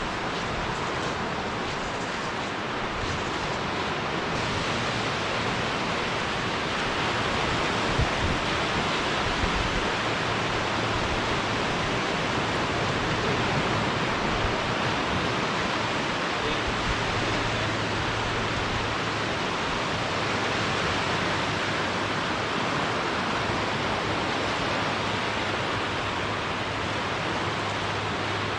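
Steady rushing of surf washing on the shore, with a faint low hum coming and going underneath from about four seconds in.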